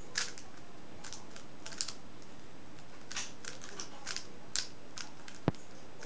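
Plastic 3x3 Rubik's cube being turned by hand, its layers clicking in short, irregular clusters of turns. One sharper tap stands out near the end.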